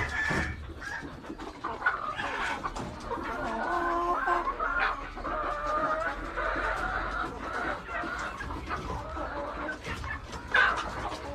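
A flock of chickens clucking and calling over one another, with a run of overlapping calls in the middle and a few sharper clicks and knocks.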